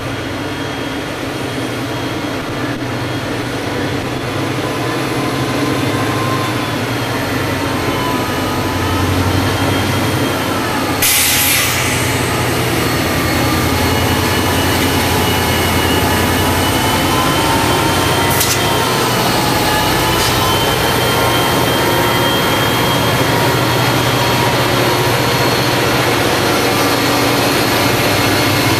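Two F40 diesel locomotives drumming as they roll slowly past close by, steadily growing louder, with a high whine that wavers in pitch. There is a short hiss about eleven seconds in and a single click a few seconds later.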